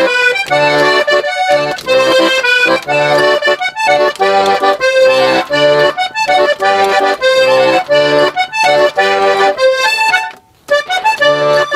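Three-row diatonic button accordion tuned A–D–G, played solo: a lively Panamanian típico melody over regularly pulsing bass-button chords. There is a brief break near the end before the playing picks up again.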